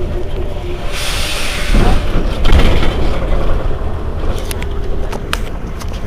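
Heuliez GX 327 city bus's rear-mounted diesel engine running at a stop, with a burst of compressed-air hiss about a second in that lasts about a second. A few light clicks come near the end.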